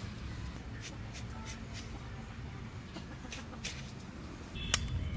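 Faint scattered clicks of garlic cloves being pared against a curved iron blade, with a hen clucking softly a few times in the background, most plainly near the end.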